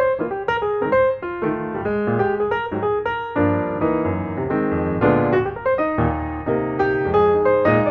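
Background piano music: a flowing melody of quick notes over chords and a bass line.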